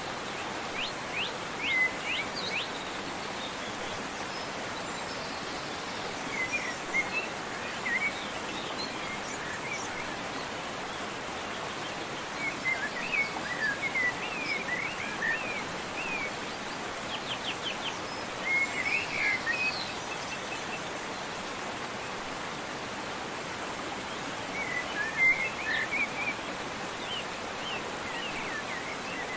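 Steady rushing of a waterfall, with small songbirds chirping and twittering in short bursts every few seconds.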